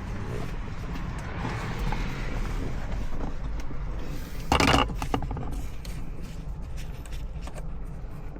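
Aerosol electronics cleaner (rainbow corrosion wash) sprayed into a car radio's dirty volume potentiometer. A softer hiss comes first, then a short, louder burst of spray about four and a half seconds in, over a steady low rumble.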